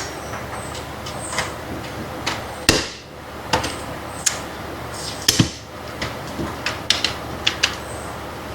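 Irregular clicks and knocks of small parts and tools being handled, with two louder knocks about three and five seconds in and a quick run of clicks near the end, over a steady background hiss.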